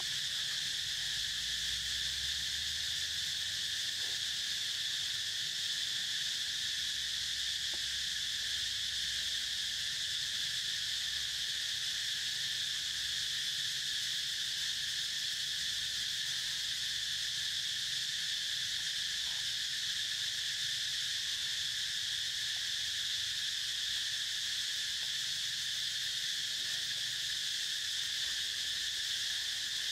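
A steady, high-pitched insect chorus that holds an even level without rising or falling.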